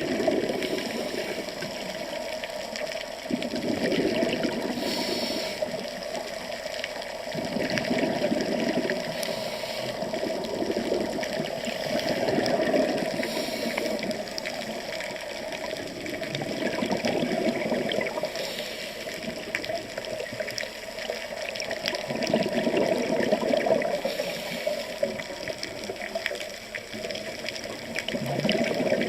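Water rushing and bubbling, swelling and easing every four to five seconds.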